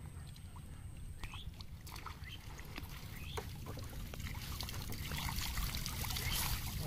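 Water pouring and dripping from a bamboo-framed square lift net as it is hauled up out of shallow floodwater, the splashing patter growing louder in the second half as the net clears the surface.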